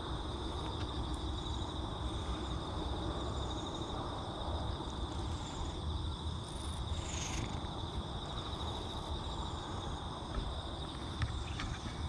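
A black-and-white cat purring close up while being stroked, a low steady rumble. A steady high trill runs behind it.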